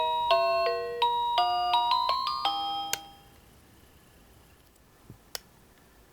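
Seiko NR435P alarm clock's melody alarm playing an electronic tune of quick, fading notes, which stops about halfway through. After it come a few faint clicks.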